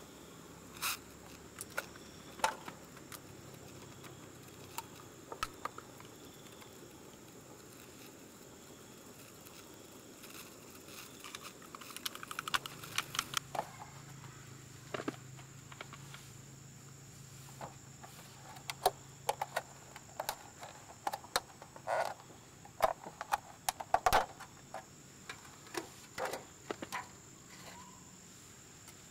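Steady high chirring of crickets and other insects. Over it come sharp clicks and crinkles from a clear plastic meat tray being handled: a few early on, then many more in the second half.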